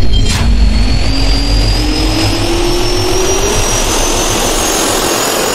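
Jet turbine engine spooling up: a slowly rising whine over a heavy steady roar, with a brief sharp whoosh about a quarter second in.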